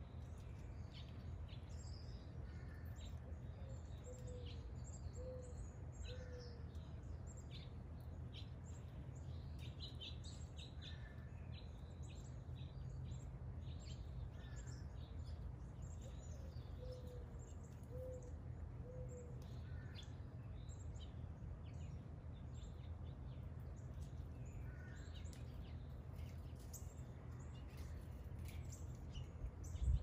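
Several songbirds chirping and calling, many short high notes scattered throughout. A low three-note call comes twice, about four seconds in and again around seventeen seconds. A steady low hum of background noise lies under it all.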